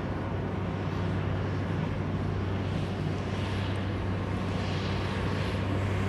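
Slag Taurus P120 slag pot carrier's engine running steadily as the machine drives, a deep, even drone with a hissing rush that swells in the second half.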